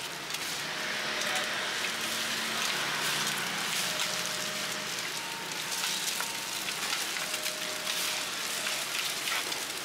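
Eggs frying in hot oil on a large flat pan, a steady crackling sizzle.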